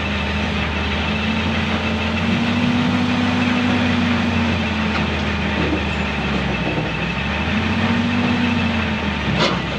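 Komatsu PC200 excavator's diesel engine running under load as the machine crawls up the ramps onto a flatbed truck, its pitch swelling and easing back twice.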